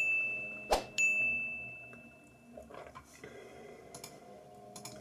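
A bell-like ding ringing out, then a sharp click and a second ding that fades over about a second and a half: a click-and-ding subscribe-button sound effect. A few faint clicks follow.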